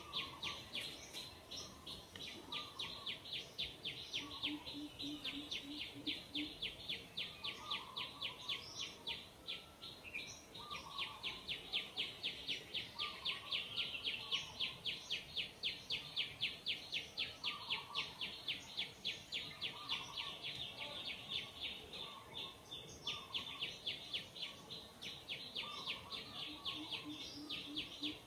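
Steady, high-pitched chirping from wildlife, repeating about three times a second without a break, with softer, lower calls now and then.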